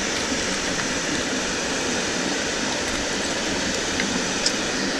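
Steady rush of overflowing lake water, an even, continuous noise with a faint tick or two near the end.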